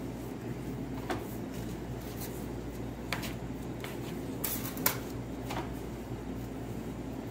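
A metal bench scraper clicking and tapping against a marble counter as it cuts portions from a mass of pizza dough: a handful of short, sharp taps, the sharpest about five seconds in, over a steady low room hum.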